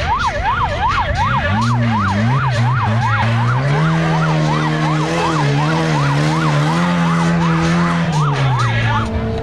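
Yelping siren sweeping rapidly up and down, about three to four sweeps a second and speeding up slightly, over a lower wavering tone; it cuts off near the end.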